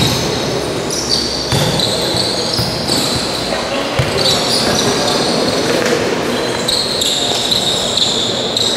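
Indoor futsal play: shoes squeaking on the court floor, with the odd thud of the ball being kicked or bouncing, echoing in a large gym.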